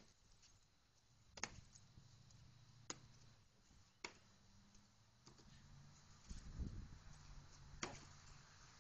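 Wooden practice sticks clacking together in sword sparring: about six sharp, separate clacks, spaced a second or more apart. A brief dull rumble comes about two-thirds of the way through, over a faint low hum.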